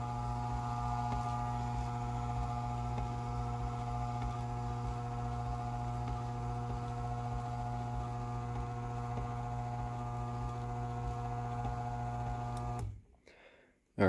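LiftMaster 1000 series V-belt drive garage door opener running: a steady electric motor hum as the motor drives the belt and limit shaft. Near the end it cuts off suddenly as a limit cam trips its switch and stops the motor.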